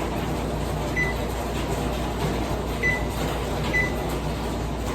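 Three short electronic beeps from an oven's keypad as timer buttons are pressed to set a roughly 10-minute timer, over a steady low hum.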